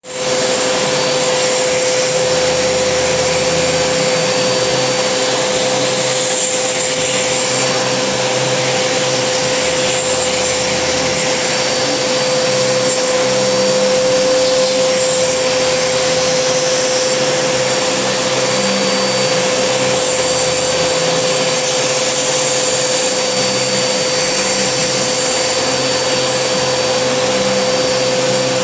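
Vacuum cleaner with a brush nozzle running steadily as it is drawn over a cat's fur, a constant hum over the rush of air.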